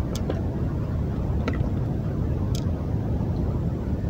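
A few sharp clicks over a steady low rumble: the utility supply being unplugged and the JQX-62F 80 A, 220 V-coil relays snapping over from utility to inverter power.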